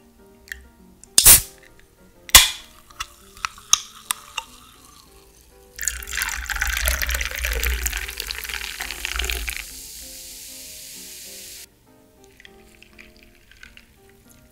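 Sparkling water poured over ice and peach syrup in a glass, fizzing loudly for about four seconds, then a quieter steady fizz that cuts off suddenly. Before the pour, two sharp clinks and a few small ice ticks; soft background music plays underneath.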